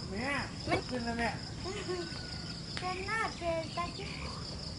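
A steady, high-pitched insect drone runs through, with short snatches of indistinct voices talking now and then.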